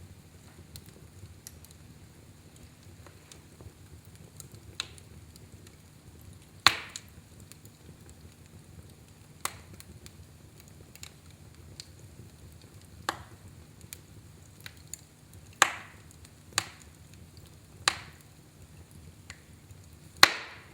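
Fire burning in a fireplace, crackling with sharp, irregular pops every one to three seconds over a low steady rumble.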